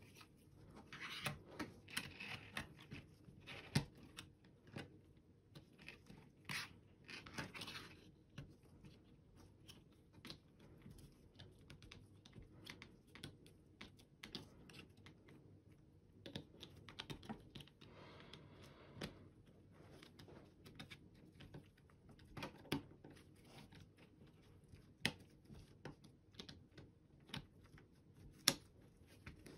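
Faint, irregular small clicks and knocks of plastic mouse parts, with the rustle and scrape of nitrile-gloved hands, as a gaming mouse's circuit board is fitted into its bottom shell.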